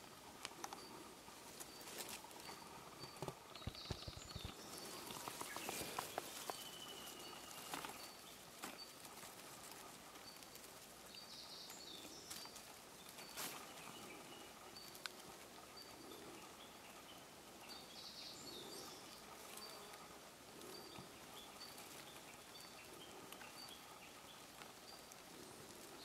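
Faint outdoor ambience: a high tick repeating about once a second and a few short chirps every several seconds, with scattered clicks and rustles in the first several seconds.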